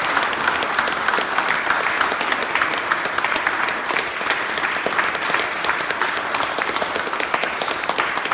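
Small audience applauding steadily: many hands clapping at once.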